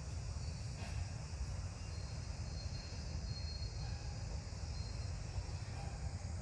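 Outdoor forest ambience: a steady low rumble with faint, thin, high-pitched insect calls in the middle.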